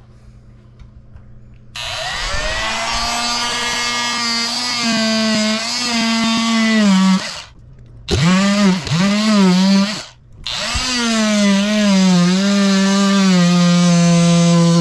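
Power saw cutting through a Schedule 40 PVC pipe sleeve to trim it flush to the wall. The motor's whine starts about two seconds in and stops briefly twice, its pitch sagging and wavering as the blade bites into the plastic.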